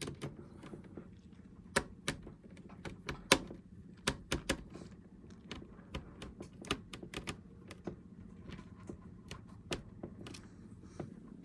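Small hand tools clicking and tapping irregularly against a laptop's plastic and metal internals during disassembly, over a faint steady low hum.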